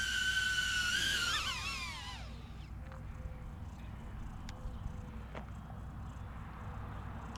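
Small drone's propellers whining steadily, then wobbling and falling in pitch as the motors spin down and stop, dying out about two seconds in as it lands. A few faint clicks follow over low background noise.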